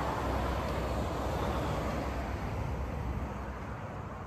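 Cars passing on a road below, a steady rush of tyre and engine noise with a low rumble that slowly fades as they drive away.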